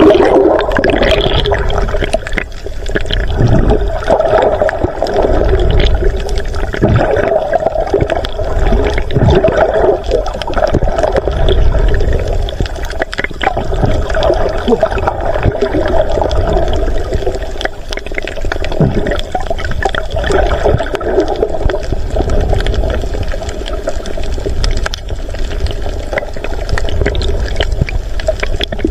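Seawater churning and sloshing, heard through a camera held underwater: a steady, muffled rushing with occasional small knocks.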